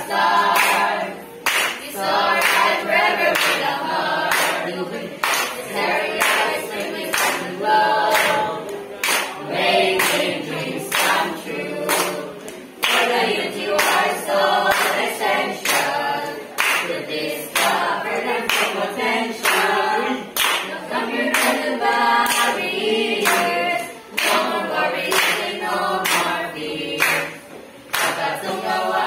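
A mixed group of teenage boys and girls singing a school hymn together, clapping their hands in a steady beat about twice a second.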